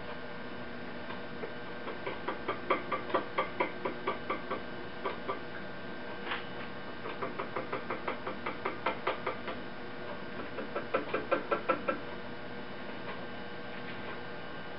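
Fingertips tapping on the screen frame of a manual tabletop six-colour screen-printing press, nudging the screen into registration with the image. Three runs of quick light taps, about four or five a second.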